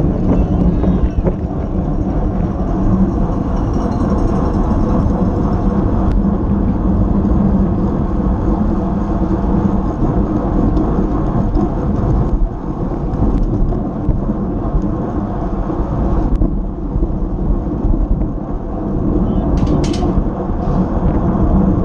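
Wind buffeting an action camera's microphone on a fixed-gear bike ridden at race speed, a steady low rumble.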